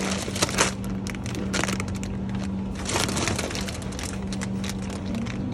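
Irregular crinkling and clicking from handling, over a steady low hum.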